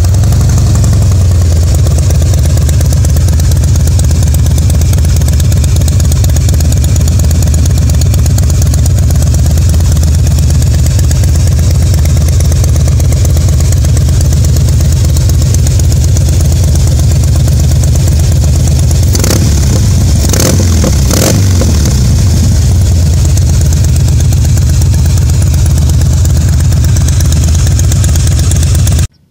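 Harley-Davidson CVO's Twin Cam 45-degree V-twin idling steadily just after it has started, with three quick throttle blips a little past halfway.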